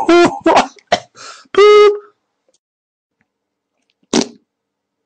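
Short comic body and mouth noises. A run of brief sounds is followed by a held buzzy tone about a second and a half in, then one short noisy puff about four seconds in.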